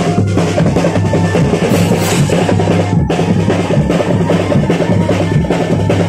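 Loud drum-led music, with many drums playing a dense, driving beat without a break.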